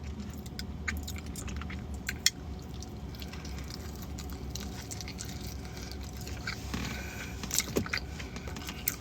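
Mouth-open chewing of food, with scattered small clicks and rustles from handling the food, over a steady low hum.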